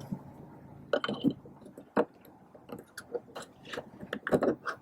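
Plastic map-light lens cover of a 2015 Honda Civic Si being handled and pressed back into its housing: a series of small clicks and taps as the clips seat. The sharpest click comes about two seconds in, with a quick cluster near the end.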